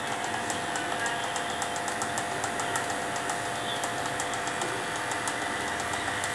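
Electric pet hair clippers running with a steady hum while shaving a St. Bernard's coat.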